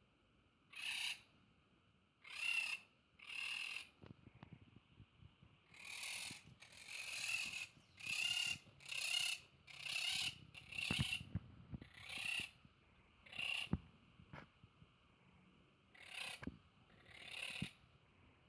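Monk parakeets giving a run of short, harsh squawks, roughly one a second, with a lull about four seconds in and a longer one near the end before two more calls.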